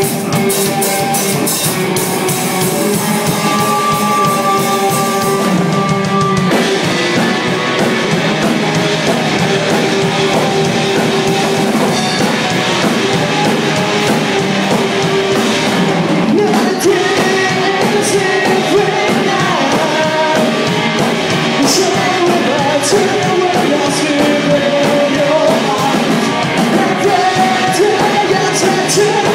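Live rock band playing loud: distorted electric guitar, bass guitar and drum kit, with shouted singing. About six seconds in, the high crashing of the cymbals stops and the song moves into a new section.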